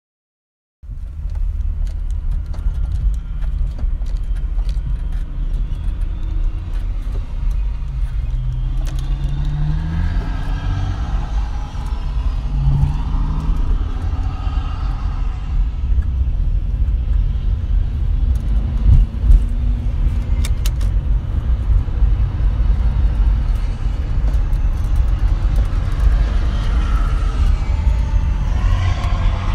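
Steady low rumble of a car driving at highway speed, heard from inside its cabin, with a semi-truck running close alongside. An engine note rises briefly about ten seconds in and again about thirteen seconds in. The sound starts abruptly about a second in.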